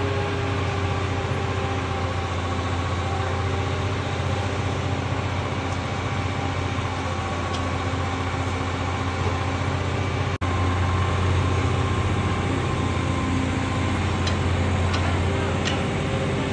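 Engine of a Holland mobile flash-butt rail welding machine running steadily, a low hum with a few steady higher tones over it. The sound drops out for an instant about ten seconds in, and a few faint high ticks come near the end.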